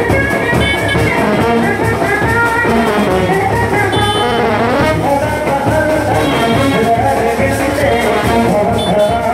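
Indian brass band playing loud, continuous music, horns carrying the tune over a driving drum beat.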